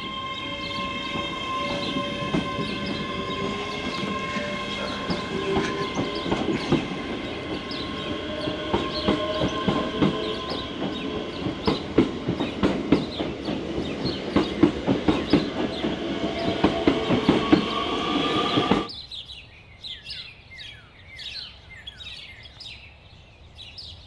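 ScotRail Class 385 electric train passing along the platform: a steady electric motor whine with the wheels clattering over the rails. About 19 seconds in it cuts off sharply to quiet with birds chirping.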